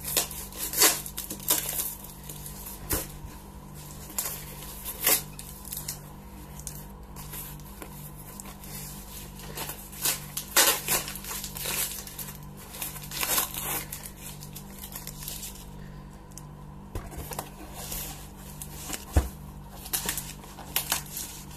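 Packing tape being torn and peeled off a cardboard parcel box, with crinkling of the packaging: a string of irregular short rips and crackles over a low steady hum.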